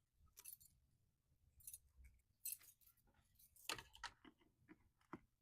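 Faint scattered clicks and rattles, six or seven short ones with the loudest a little before four seconds in: the handling of a printer's power cord and plug as it is plugged in.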